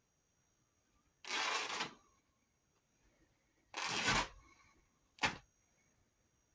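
A blue t-shirt being torn apart by hand: two rips of fabric of about half a second each, then a short sharp rip about five seconds in.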